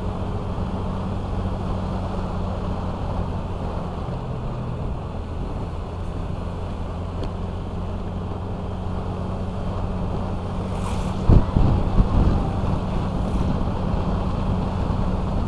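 Honda Vario 125 scooter's single-cylinder engine running steadily at cruising speed, with wind on the microphone. Two loud thumps come about two-thirds of the way through.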